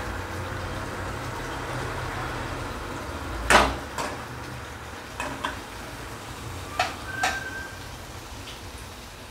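Thick Schezwan chutney bubbling and sizzling in a stainless steel kadhai, with a metal spatula scraping and knocking against the pan a few times. The loudest knock comes about three and a half seconds in.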